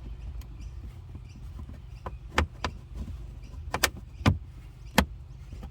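Plastic interior trim pieces in a car being pried off their clips: a series of sharp clicks and knocks, bunched in the second half, over a steady low hum.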